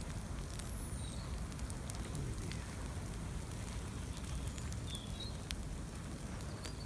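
Open fire burning with a steady low rumble and scattered sharp crackles and pops.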